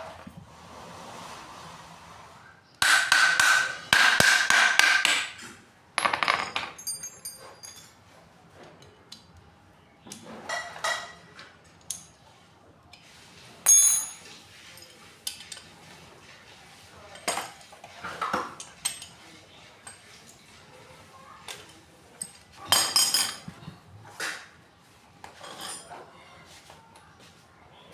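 Metal tools and water-pump parts clinking and knocking, with a burst of rapid repeated tapping a few seconds in and scattered single knocks after.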